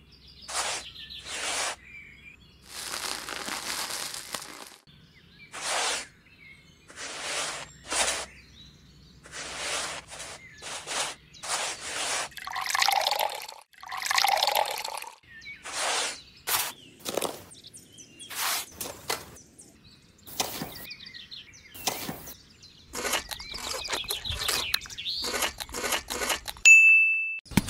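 A tiny metal toy shovel scraping and scooping dry sand in a series of short strokes. In the middle stretch, water is poured from a small cup into a ring of sand and cement, and near the end the shovel stirs the wet mortar in a tray. A brief high steady tone sounds just before the end.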